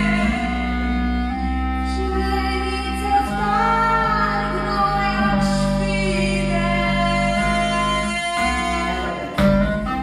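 Live experimental music: a steady electronic drone under held clarinet notes, with a woman singing. The texture changes abruptly near the end.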